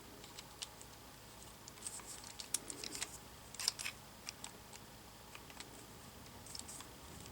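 Faint, scattered clicks and scrapes of a PEX crimp ring cutter's jaws working against a crimp ring, bunched in short clusters.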